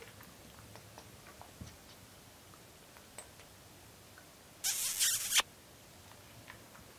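One breathy, hissing puff of air from a woman's puckered lips held close to a cat, lasting under a second, a little past two-thirds through. Faint soft clicks are scattered before it.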